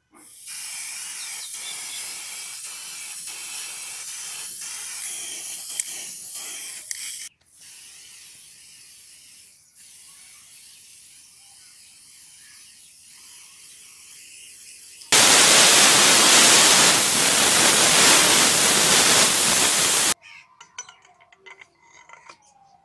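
Aerosol spray-paint can hissing as paint is sprayed onto a hatchet head and handle: a steady spray for about seven seconds, a fainter one over the next several seconds, then a much louder, harsher hiss for about five seconds that cuts off suddenly. Light knocks and handling sounds near the end.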